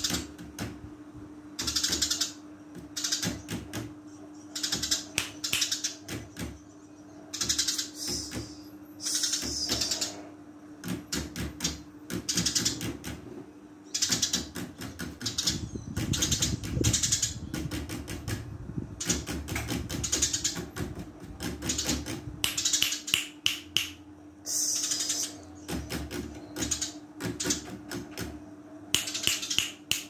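Caged sparrow chirping busily, in rapid bursts of sharp, high chirps that come every second or two, over a steady low hum.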